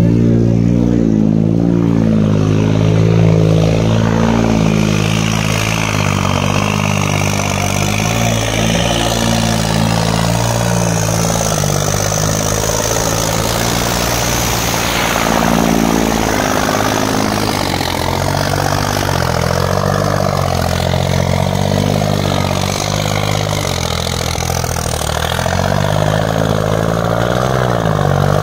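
John Deere tractor's diesel engine running hard and steady under heavy load as it drags a sack-ballasted harrow in a tractor-pulling contest, its pitch wavering only slightly.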